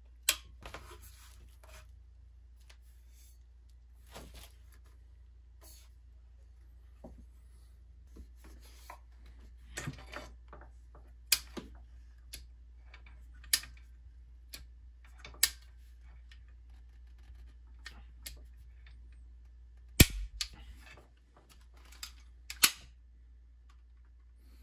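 Sharp metal clicks and clacks, scattered and irregular, from an ATI Cavalry over-under 12-gauge shotgun being assembled by hand and its break action worked; the loudest snaps come near the end.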